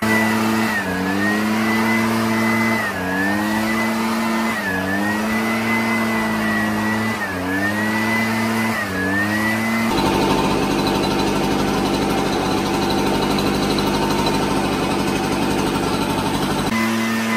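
Gas-powered leaf blower engine running hard. Over the first half its pitch sags briefly and climbs back every couple of seconds as the throttle eases and opens. From about halfway it runs at a steadier, rougher full throttle, then eases back into the earlier pattern near the end.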